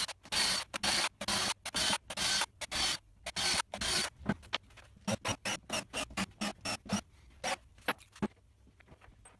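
A cordless drill being handled: a quick run of short rasping clicks, about three a second for the first few seconds, then sparser, lighter clicks and taps. No drill motor is heard running.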